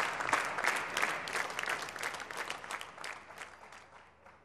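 Studio audience applauding, many hands clapping, dying away over the last second or so.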